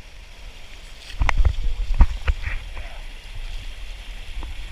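A quick run of heavy thumps and scuffs about a second in, as a person slips and stumbles down a slope, with one more knock near the end, over a steady rush of water and wind.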